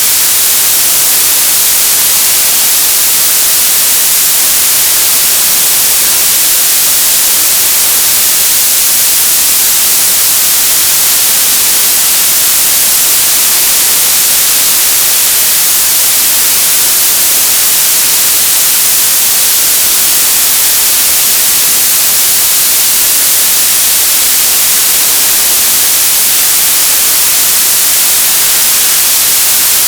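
Television static: a loud, steady hiss, strongest in the high frequencies, unchanging throughout.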